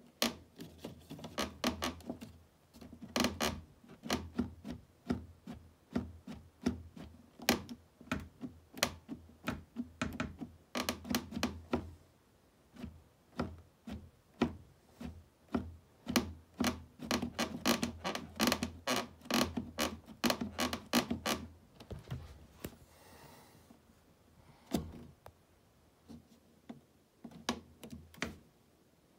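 Atomic Backland Carbon touring boot's cuff being rocked by hand, its loose cuff pivot and walk-lockout pin clicking and knocking in quick irregular runs. The clicks are the free play of a worn "Frictionless Pivot" bushing. There is a gap of a couple of seconds about three quarters of the way through, then a single knock and sparser clicks.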